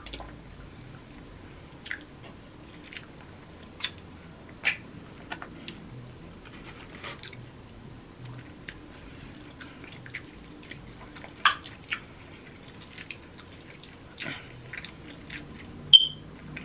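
Chewing and mouth noises while eating crab legs, with scattered sharp clicks as the shells are picked apart by hand and a brief high squeak near the end.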